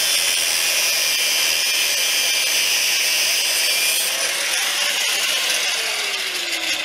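Angle grinder with a thin cut-off wheel cutting through a rusted steel body-mount bolt, a steady high-pitched grinding whine. A lower tone in the sound sinks near the end.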